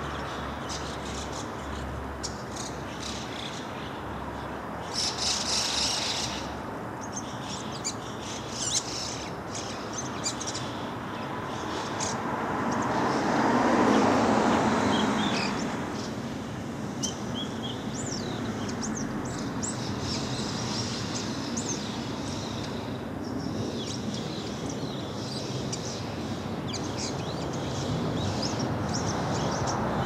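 Bull-headed shrike calling in short, sharp, high notes scattered irregularly, with a brighter burst of calls a few seconds in. A low rushing sound swells and fades around the middle, over steady background noise.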